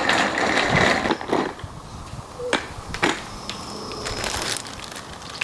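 Zip-top plastic bag of sidewalk chalk crinkling and rustling as hands handle it and reach inside, louder in the first second or so. Two sharp clicks follow, about two and a half and three seconds in, like chalk sticks knocking together.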